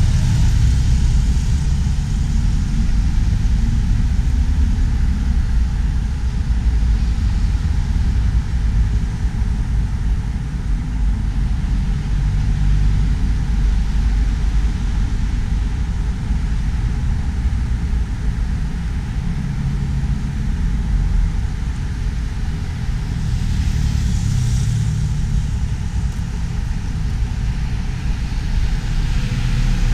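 Steady low rumble of road traffic, with one vehicle swelling louder as it passes about 24 seconds in.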